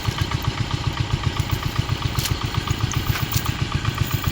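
Small boat engine running steadily, with an even, fast pulsing beat.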